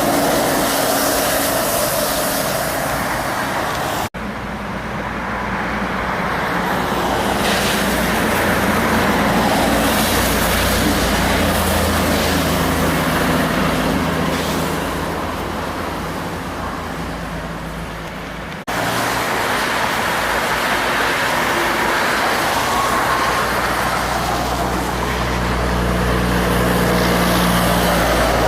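Heavy diesel trucks passing in traffic, their engines giving a deep, steady drone over tyre and road noise. The sound changes abruptly twice, as one passing truck gives way to another.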